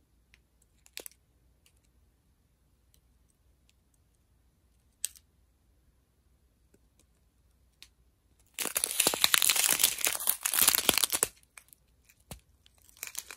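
Small plastic bags of diamond-painting drills crinkling and rustling as they are handled, loud for about three seconds starting two-thirds of the way in, with a few faint clicks before and more rustling near the end.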